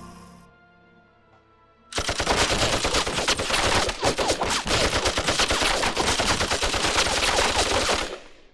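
Sustained machine-gun fire: a rapid, unbroken stream of shots that starts about two seconds in and cuts off suddenly near the end.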